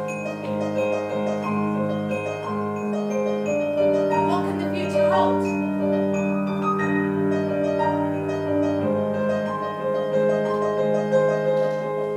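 Music led by piano, with held notes that change every second or two.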